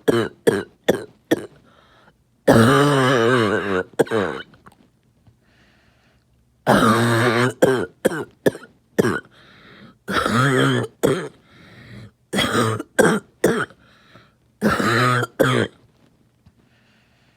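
A person coughing in repeated fits, about five of them. Each fit starts with a long, harsh, throaty cough and breaks into several short, sharp coughs.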